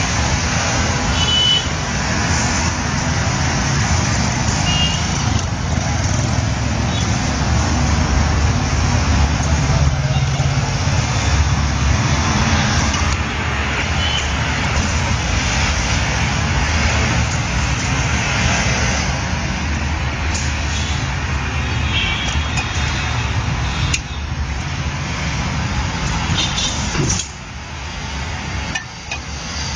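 Steady rumble of a road vehicle's engine running, with a few short knocks in the last several seconds.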